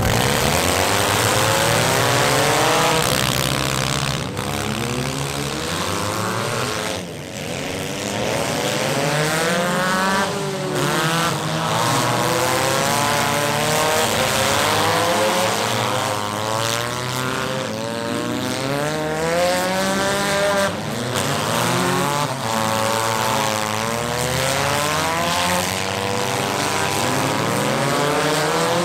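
Engines of several demolition derby cars racing together, many overlapping revs rising and falling in pitch as the drivers accelerate and lift off.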